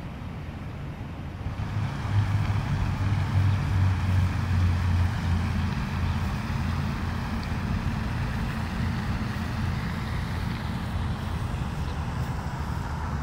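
Motor vehicle engine rumbling low over road-traffic noise, swelling about two seconds in and then holding steady.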